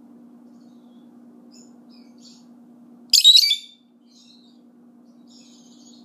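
Pet lovebirds giving soft, high chirps, with one loud, high-pitched call about halfway through that lasts about half a second.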